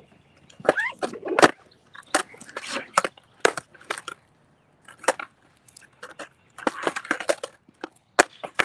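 Skateboard knocking and clacking on pavement during freestyle tricks: about a dozen sharp knocks at uneven intervals, with a quick cluster of them about seven seconds in.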